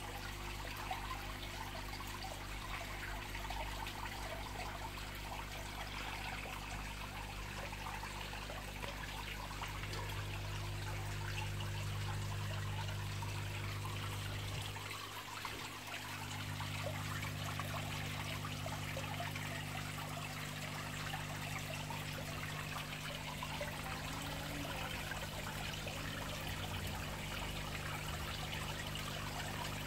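Steady trickling and splashing of water returning into a koi pond from its filter outlet and waterfall, with a low steady hum underneath.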